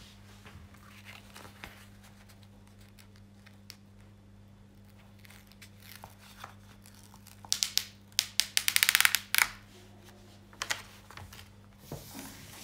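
Plastic packaging and tape around a rolled diamond-painting canvas crinkling and tearing as it is unwrapped by hand, quiet at first, then a loud run of rapid crackling about seven to nine seconds in, with smaller rustles after.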